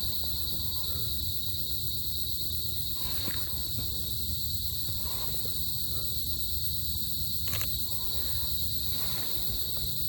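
Steady, shrill insect chorus in mountain forest, several high pitches held without a break, over a low rumble. A few short crackles come through, the loudest about three-quarters of the way in.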